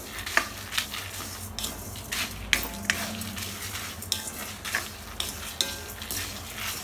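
A spatula scraping and stirring coriander seeds, toor dal and peppercorns as they dry-roast in a metal pan, for rasam powder. The seeds rattle, with sharp scrapes about twice a second.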